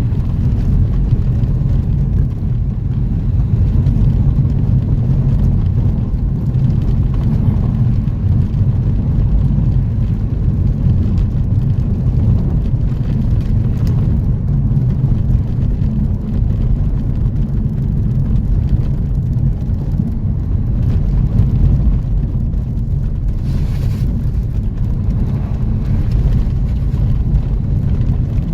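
A motor vehicle driving, with a loud, steady low rumble of engine and running noise.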